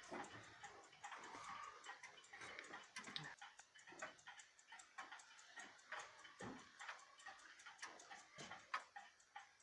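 Faint, steady ticking of a pendulum clock, even ticks at a regular beat, with a few soft knocks.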